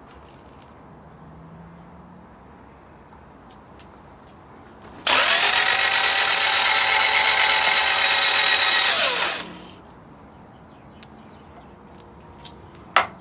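Starter motor cranking a freshly installed Toyota 2ZZ-GE engine for about four and a half seconds, a whine that winds up at the start and winds down at the end; with the injectors removed the engine turns over without firing.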